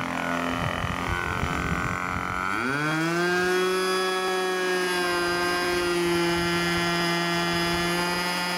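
Model aircraft glow engine, running on methanol fuel with nitromethane, turning its propeller. It runs unevenly at first, then about two and a half seconds in revs up quickly and holds a steady high-pitched note.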